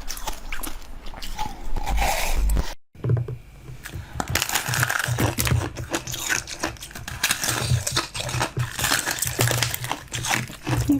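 Close-miked eating: a person biting and chewing crunchy frozen food and jelly, with dense crunching and crinkling clicks. The sound drops out completely for a moment about three seconds in.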